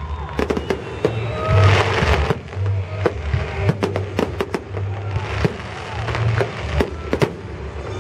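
Fireworks salute going off: a rapid run of sharp bangs and pops, with a crackling shower about one and a half seconds in. Music with steady low notes plays underneath.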